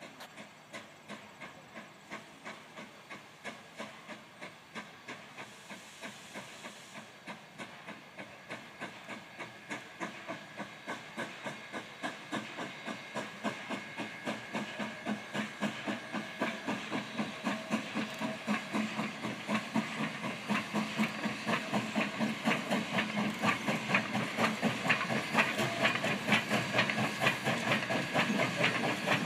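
Narrow-gauge Denver & Rio Grande Western No. 464, a 2-8-2 steam locomotive, chuffing in a fast, even rhythm of exhaust beats with a hiss of steam as it approaches, growing steadily louder.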